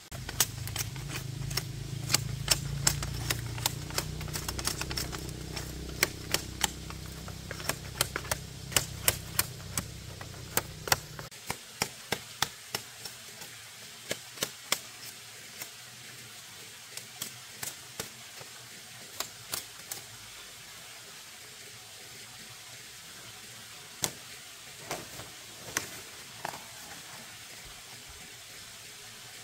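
Repeated sharp knocks, quick and irregular for the first dozen seconds, then thinning out to occasional single strikes. A low hum underneath cuts off suddenly about eleven seconds in.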